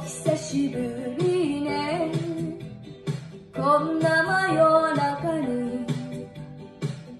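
A girl singing a Japanese song over a karaoke backing track, in two phrases with a short breath between them.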